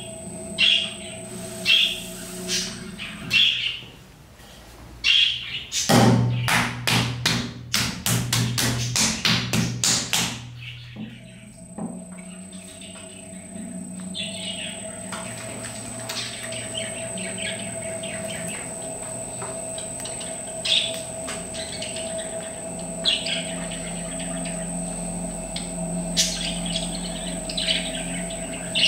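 Electric pottery wheel motor running with a steady whine, which stops about three seconds in and starts again about twelve seconds in. In between comes a quick run of about a dozen pats, around three a second, as a ball of clay is slapped down and patted onto the wheel head. Small birds chirp repeatedly throughout.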